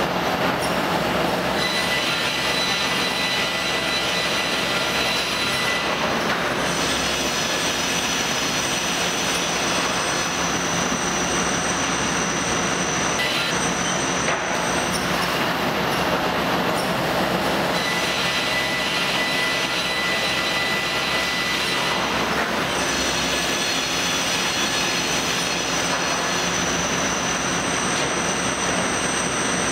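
Automated plywood cutting and stacking line running: a steady machine din over a low hum, with high-pitched whines that come and go every few seconds.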